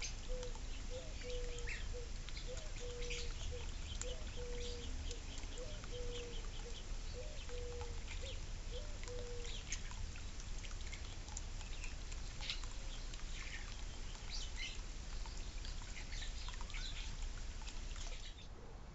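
A bird repeats a short, low note about one and a half times a second for roughly the first half, then stops. Throughout, water trickles and drips from a backyard fountain with scattered sharp ticks.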